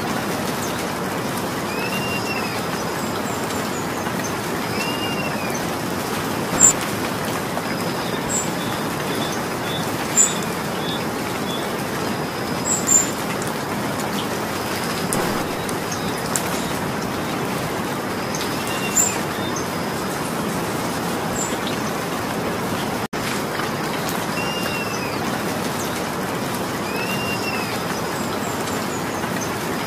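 Steady rain falling, with a bird's short arched chirps repeating every few seconds and a few sharp, louder ticks. The sound cuts out for an instant about two-thirds of the way through.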